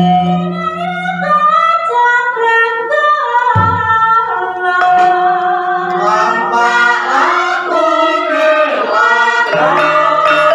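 Gamelan singers, several women and men, singing a melody together with wavering held notes, over the gamelan's bronze mallet instruments.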